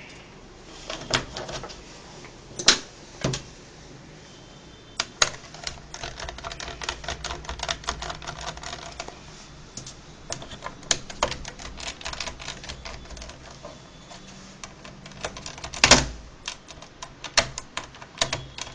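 Small screwdriver clicking and tapping against the plastic LCD bezel of an HP 540 laptop as the rubber screw covers are picked out and the bezel screws are worked loose. It is a long run of irregular small clicks, with a few louder knocks, the loudest about 16 seconds in.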